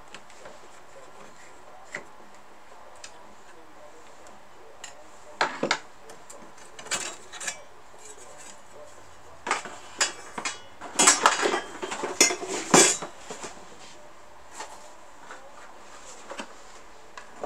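Metal parts of a 1963 Royal FP typewriter clicking and clinking as they are handled while the feed rollers are taken out. A few scattered clicks, then two busier runs of clinks, the first about five seconds in and a louder one just past the middle.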